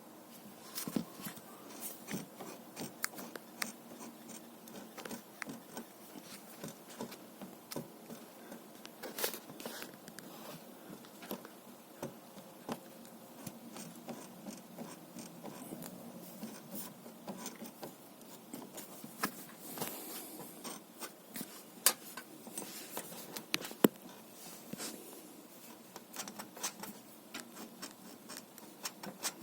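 Scattered light metallic clicks and rubbing as a motorcycle driveshaft and its universal joint are worked by hand to check for play, with two sharper knocks about two-thirds of the way through.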